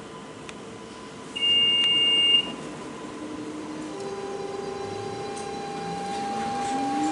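Interior of a Copenhagen S-train at departure: a single steady electronic beep of about a second, the door-closing warning. Then, from about four seconds in, the electric traction motors start a whine that rises steadily in pitch as the train pulls away.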